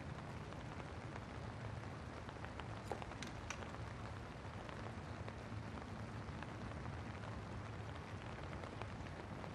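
Steady rain falling, with a low hum underneath and a few faint ticks of drops about three seconds in.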